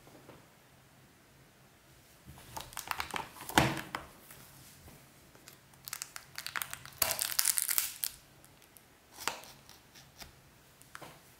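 Plastic shrink wrap on a Blu-ray case crinkling and tearing as it is cut open with a small knife. The sound comes in irregular spells: about two seconds in, again from about six to eight seconds, and briefly near nine and eleven seconds.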